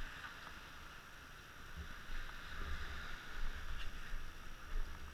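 Low rumbles and bumps from a moving camera's microphone, handling and wind noise, over a steady hiss.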